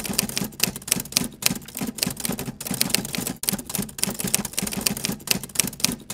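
Typewriter sound effect: a rapid, irregular run of key clacks.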